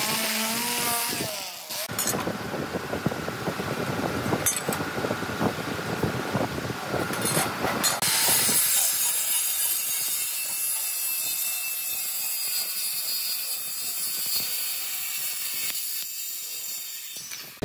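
An electric sander-polisher whines and shifts in pitch at the start. A circular saw then cuts through wooden boards, with a steady high-pitched whine through most of the rest.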